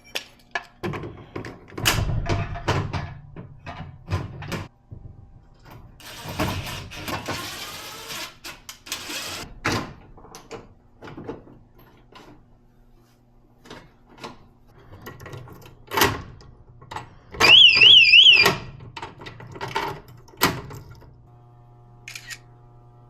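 Detex door alarm sounding a short, loud warble for about a second, its pitch swinging up and down several times a second. Around it come clicks and knocks of hand work on the door hardware and a few seconds of whirring from a power tool.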